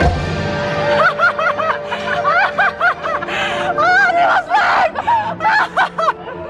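Cartoon rat characters from the ride soundtrack squeaking and giggling: a quick run of short, high chirps that rise and fall, starting about a second in after the orchestral music breaks off.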